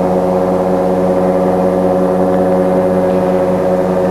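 A steady pitched drone with many overtones, holding one pitch.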